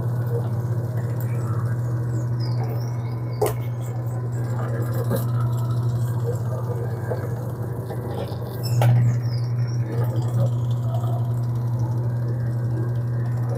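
Steady hum of an electric pasta-rolling machine running as dough is passed through its rollers, with two sharp knocks, about three and a half and nine seconds in.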